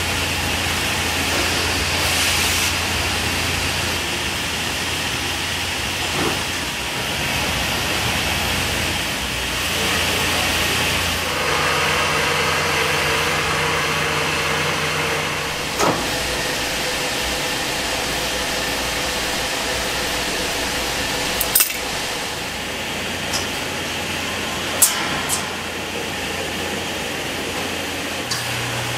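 Textile mill machinery running steadily, a yarn warping machine winding yarn onto its large drum: a constant hum and hiss, with a few sharp clacks scattered through.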